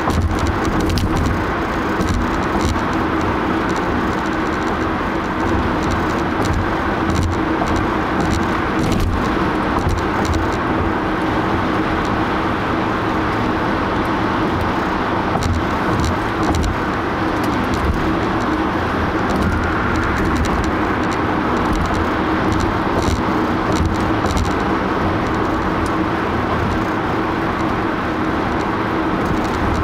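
Steady road and engine noise of a car driving on a highway, heard from inside the cabin: a continuous low rumble with a steady hum and a few faint clicks.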